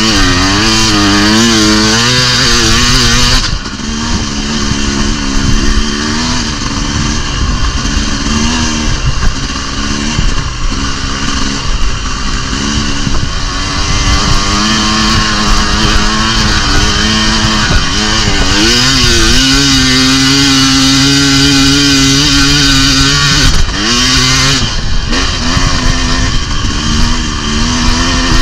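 Dirt bike engine revving up and down as the bike is ridden, its pitch rising and falling with the throttle. The sound changes abruptly a few seconds in and again near the end.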